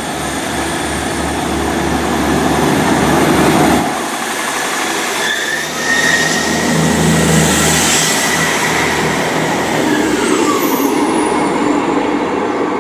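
Class 158 diesel multiple unit pulling out of the station: its diesel engines run up under power and grow louder over the first few seconds. There is a brief dip about four seconds in, then the engine note steadies higher as the train moves off. A thin wheel squeal comes from the rails partway through.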